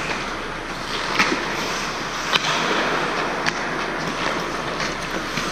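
Ice hockey skates scraping and carving on the rink ice, with three sharp clacks of sticks and puck about a second apart.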